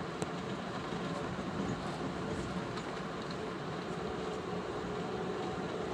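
Steady rumble of a moving train, heard from inside the passenger car, with a faint low hum and one sharp click just after the start.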